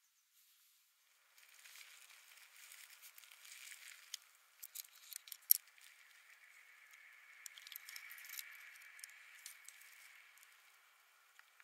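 Dry beaver teeth and jawbone clicking and rattling as they are handled among pebbles: scattered light clicks with one sharp louder click about halfway through, over a faint steady hiss.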